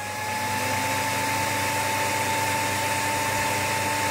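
Cooling fans of a homebrew 1 kW VHF linear amplifier, just switched on, finishing spinning up and then running steadily. The sound is a whoosh of air with one steady whine that levels off early on.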